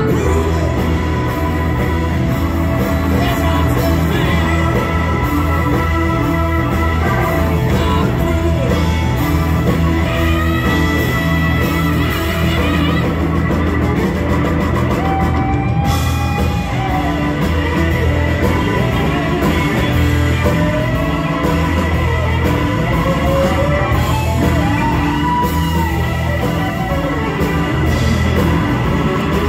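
Live blues-rock band playing loud: a lead electric guitar with bending notes over bass guitar and drum kit.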